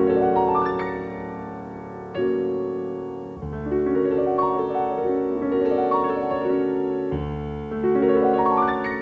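Solo piano playing classical music: rising arpeggios near the start and again near the end, over sustained chords, with new chords struck a few times in between.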